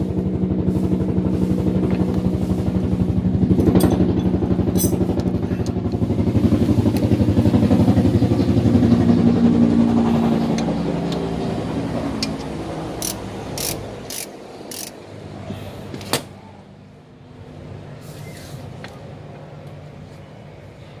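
A motor vehicle engine running nearby, loud and steady, then fading away about 14 seconds in. After it, a few sharp metallic clicks, one louder knock near the middle of them.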